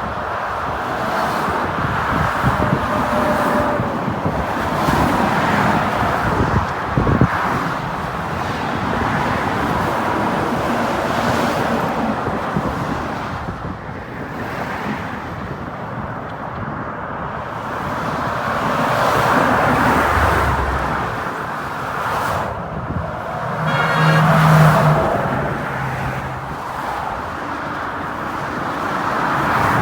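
Highway traffic passing, a steady rush of tyres and engines that swells and fades as vehicles go by. A short pitched tone rises above it about 24 seconds in.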